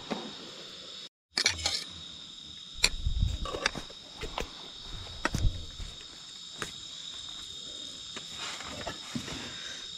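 Night insects calling steadily in high, even tones, with a few scattered sharp clinks and knocks from a spoon stirring in a metal cooking pot. The sound drops out completely for a moment about a second in.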